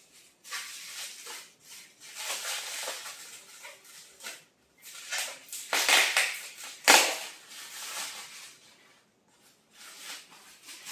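Clear plastic wrapping crinkling and rustling in irregular bursts as it is handled and pulled off a small box, with the loudest sharp crackle about seven seconds in.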